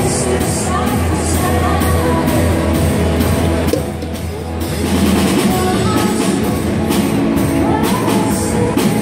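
Live rock band playing a song, a drum kit keeping a steady beat under singing, the sound thinning out briefly about four seconds in.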